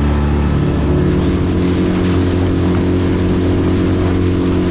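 A small boat's motor running steadily under way, its pitch shifting slightly about half a second in, over a steady hiss.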